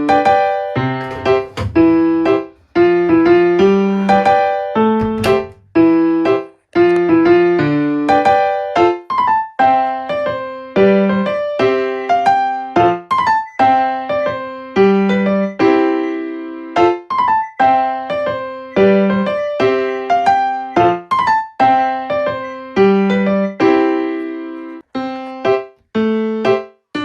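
Background music: a piano melody of struck notes in a steady, light rhythm.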